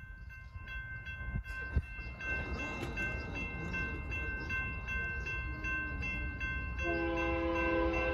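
Railroad crossing warning bell ringing steadily at about two and a half strokes a second, warning of an approaching train. About seven seconds in, the horn of the approaching Union Pacific locomotive starts a long, steady blast over it.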